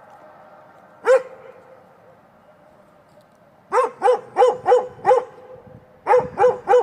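Kangal shepherd dog barking: a single bark about a second in, then a quick run of five barks, then three more near the end.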